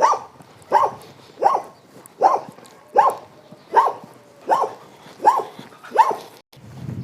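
A dog barking over and over at a steady pace, about one bark every three-quarters of a second, nine barks in all, which cut off abruptly near the end.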